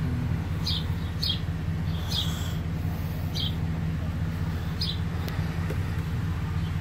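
A steady low machine hum, with a bird chirping in short, high calls every second or so.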